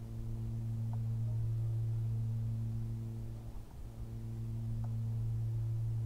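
A steady low hum with a few overtones, held in two long stretches with a brief dip about halfway through.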